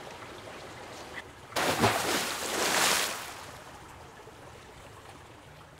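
A splashing, rushing water sound effect that comes in suddenly about a second and a half in and fades away over the next few seconds.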